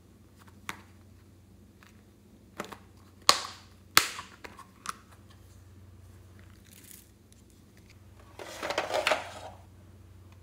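A plastic heart-shaped case clicking and snapping as it is opened, with two loud sharp snaps about three and four seconds in. Near the end comes a rattling rush of about a second as small pink pieces are tipped out of it into the dish.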